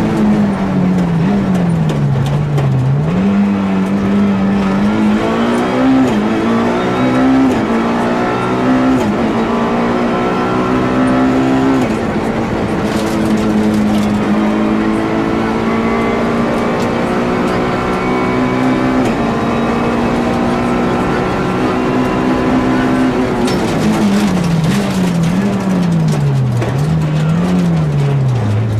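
Nissan Almera GTi's SR20DE two-litre four-cylinder engine driven hard, heard onboard the rally car. Revs climb and drop sharply through several upshifts in the first twelve seconds and then hold high and steady. Near the end the revs swing down and up quickly several times.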